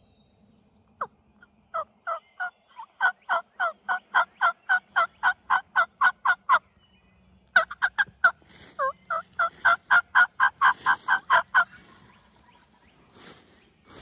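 Turkey yelping: a long, evenly paced run of yelps at about four a second, a short break, then a second run, each note breaking from a lower to a higher pitch.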